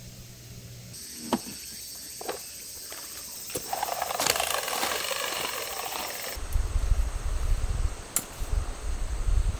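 Footsteps crunching on gravel, after a few faint clicks and a thin insect chirp at the start. For the last few seconds an uneven low rumble is the loudest sound.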